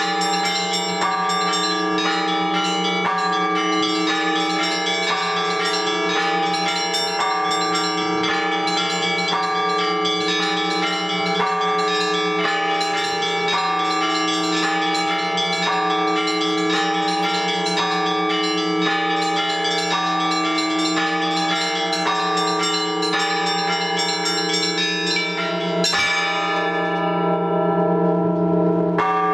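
Russian Orthodox church bells rung by hand for the all-night vigil: a quick repeating pattern of struck small and middle bells over a steady low bell hum. Near the end the pattern breaks off after one strike, which rings out and fades for about three seconds before the ringing starts again.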